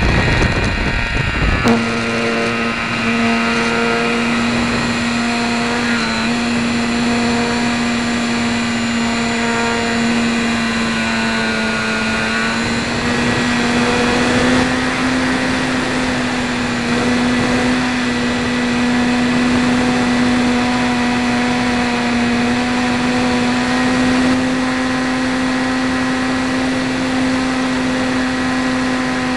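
Brushless electric motor and 10x5 propeller of an RC trainer plane in flight, heard from an onboard camera: a steady whine that holds one pitch and rises slightly about halfway through. Before the whine settles there is a rush of noise in the first couple of seconds.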